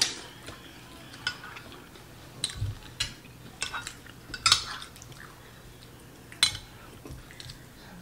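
Metal spoon and fork clinking and scraping against a ceramic soup bowl while scooping soup: a string of scattered sharp clicks, roughly one every second or less.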